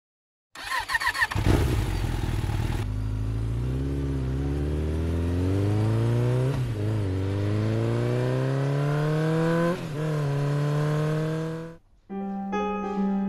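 Motorcycle engine starting with a burst of revs, then pulling away with its pitch climbing steadily and two brief dips at gear changes. It cuts off suddenly near the end, where piano music begins.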